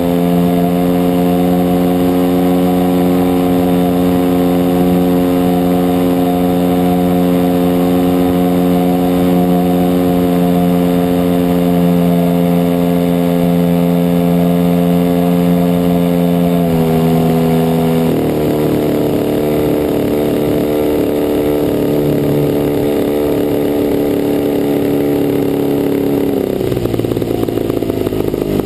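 DLE 55cc single-cylinder two-stroke petrol engine of a large RC Cessna 182 model running steadily at high throttle, then dropping in pitch in two steps about 17 and 18 seconds in and once more near the end as the throttle is pulled back.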